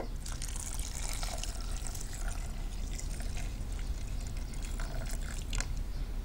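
Water pouring from a small jug into a saucepan of rice and chopped tomatoes, a steady trickling splash that stops near the end.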